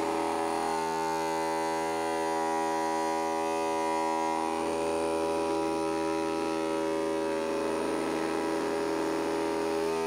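Homemade vacuum cleaner's small electric motor and propeller fan running steadily: a constant motor hum as it sucks through its hose.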